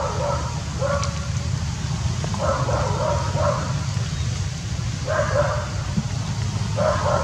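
An animal yapping in quick clusters of short, pitched calls that recur about every two seconds, over a steady low rumble.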